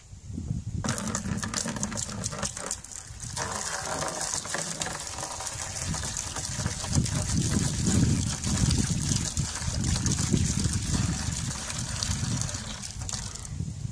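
Mineral spirits being poured in a steady stream from a plastic jug. The pour starts about a second in and stops near the end.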